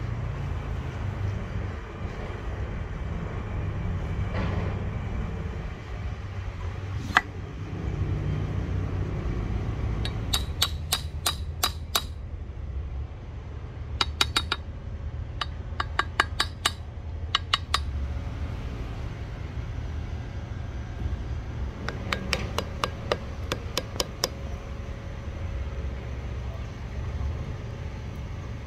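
Light hammer taps in quick clusters, driving glued wooden wedges into the eye of a double bit axe head. Each burst is several sharp, ringing taps a second, over a steady low background rumble.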